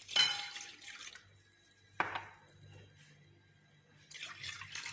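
Warm milk poured into a mixing bowl, splashing in two pours, with a sharp knock about two seconds in.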